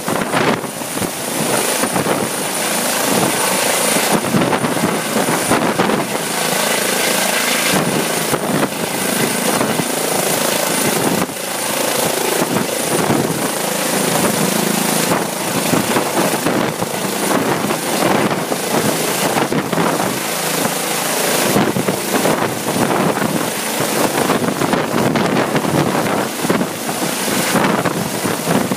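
Eurocopter EC135 police helicopter lifting off and hovering low overhead: continuous rotor and turbine noise with a steady high whine, and rotor downwash buffeting the microphone.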